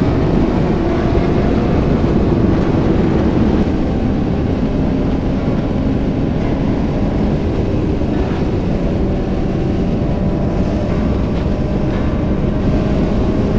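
Motorcycle at speed: a steady engine drone under heavy wind rush on the helmet or bike-mounted camera microphone.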